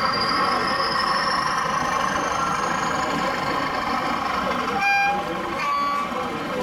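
A model locomotive's sound-decoder horn gives a short two-note toot about five seconds in, over the steady hubbub of a busy exhibition hall. A faint high whine rises in pitch over the first few seconds.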